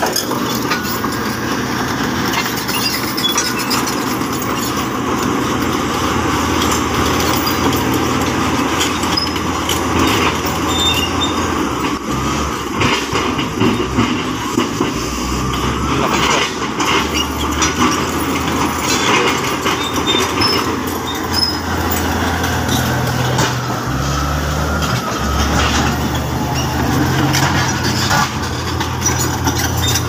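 Komatsu crawler bulldozer's diesel engine working under load, its note shifting up and down a few times, with steel tracks clanking and rattling over rocky ground.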